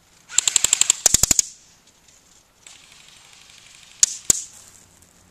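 Airsoft rifle firing a rapid full-auto burst of about a dozen shots, roughly eleven a second, lasting just over a second. About four seconds in come two more sharp cracks in quick succession.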